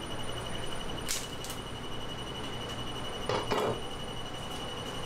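Fish market background noise with a steady high-pitched whine, a couple of sharp clicks about a second in, and a short louder noise about three and a half seconds in.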